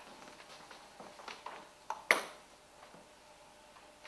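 A few sharp knocks of a table tennis ball, the loudest about two seconds in, each with a short echo in the hall, then near quiet.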